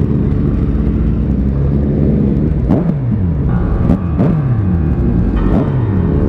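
Motorcycle engine running on the road, its pitch rising and dropping several times as it revs and eases off, over a steady low rumble.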